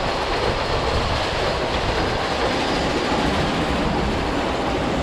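The Prater's Liliputbahn miniature railway train running past, a steady rumble with wheel clatter.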